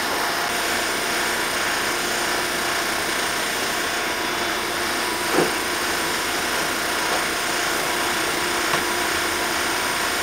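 The tire-drive mechanism of a handbuilt Japanese-style spring power hammer running steadily, with a steady hum but no hammer blows, and a single light knock about five seconds in.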